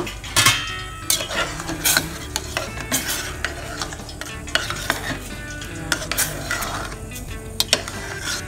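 A utensil stirring and scraping around a stainless steel pot of boiling soy-sauce and brown-sugar sauce, with irregular clinks against the pot and bubbling, as a cornstarch slurry is mixed in to thicken it.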